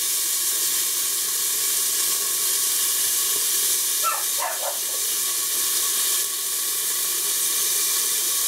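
Beef steaks sizzling under the lid of a hot roasting pan, a steady hiss, the meat frying on the pan's stored heat with the hob switched off. A brief higher-pitched wavering sound comes through about four seconds in.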